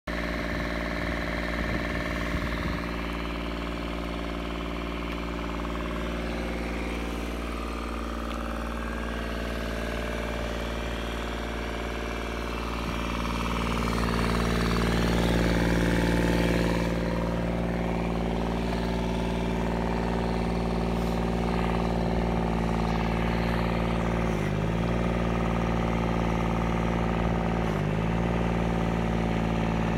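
Three-cylinder Yanmar diesel in a modified Case TF300 mini dozer running steadily. It grows louder for a few seconds midway, and near the end the engine speed dips briefly twice and recovers.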